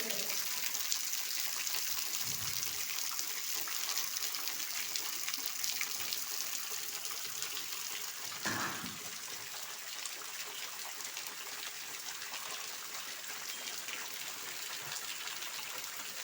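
Steady rain falling, an even dense hiss of drops, with one brief louder sound about eight and a half seconds in.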